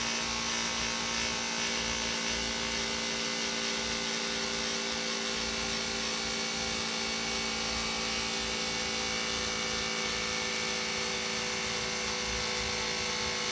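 Handheld USB-rechargeable electric tyre pump running steadily with an even electric hum, inflating an electric unicycle's tyre from about 24 PSI up toward its preset 45 PSI.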